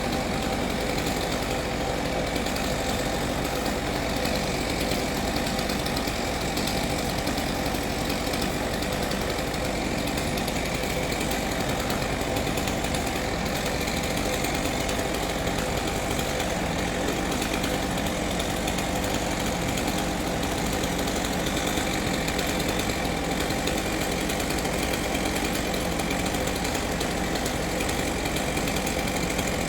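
An engine running steadily at a constant speed, without revving or pauses.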